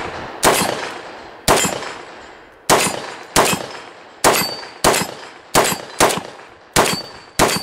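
Krebs Custom AK103K-S, a 7.62x39 short-barrelled AK carbine with a muzzle brake, fired semi-automatically: about ten shots at an uneven pace, roughly one every half second to second. Each report trails off in a long echo.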